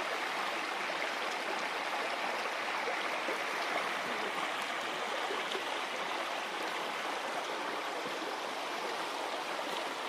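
Shallow forest stream running in a sheet over a flat rock slab and spilling down a small ledge: a steady, even rush of water.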